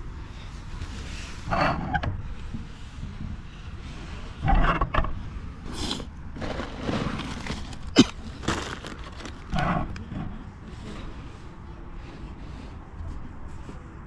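Rustling and bumps of a handheld phone being moved about against a jacket, in several short bursts with one sharp click about eight seconds in, over a steady low rumble.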